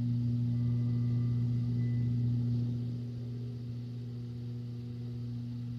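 A steady, low electrical hum, level in pitch, with a few faint high ringing tones dying away in its first two seconds.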